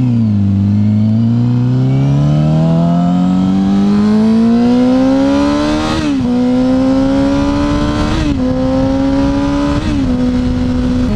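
2007 Yamaha R6's inline-four engine accelerating hard, its pitch climbing steadily, then shifting up three times, at about six, eight and ten seconds in, with a sharp drop in revs at each shift before settling into a steady cruise. Wind rush runs underneath.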